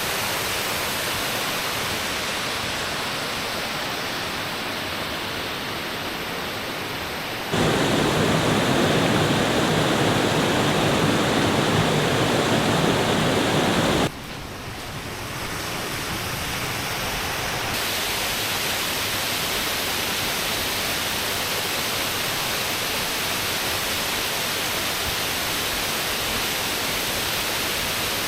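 Steady rushing of a creek's waterfall, with no other sound over it. It jumps abruptly to a louder, fuller rush for a stretch in the middle, then drops back to a lighter hiss.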